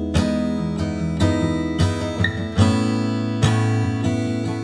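Background music: strummed acoustic guitar, with a chord change about halfway through.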